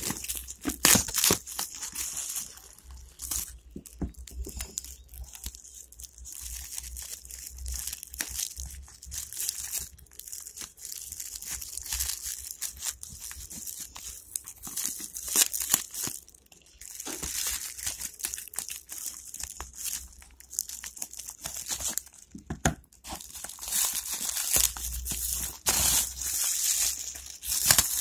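Clear plastic wrapping crinkling and tearing as it is pulled open by hand, in irregular rustling bursts with a couple of short pauses.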